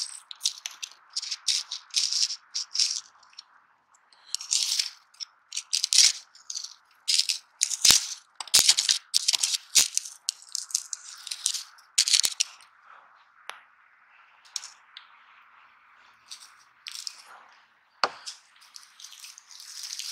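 Brittle charred matchsticks rattling and crunching as the burnt-out mass of matches is prodded and broken apart, in irregular bursts of crisp clicks with a sharper crack near the end.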